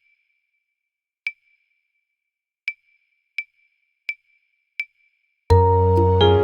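Woodblock-like metronome count-in clicking at about 85 beats a minute: two clicks at half speed, then four on the beat. After the last click a gentle instrumental backing track comes in about five and a half seconds in.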